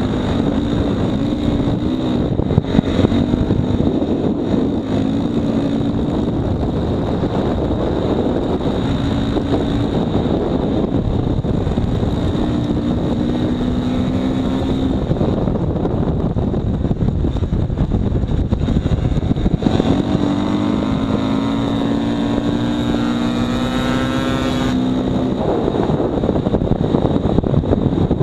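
Motorcycle engine running hard at speed, its pitch climbing as it accelerates and dropping as it slows, with heavy wind noise on the microphone.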